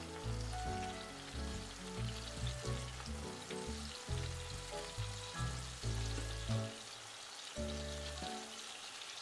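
Tomato slices sizzling in olive oil in a frying pan, a steady crackling hiss, under background music with a bass line.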